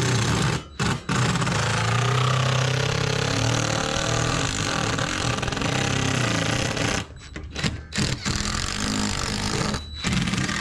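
Cordless DeWalt 20V impact driver hammering screws into an RV's entry door frame. It goes in a couple of short bursts, then one long run of about six seconds, then several shorter bursts near the end.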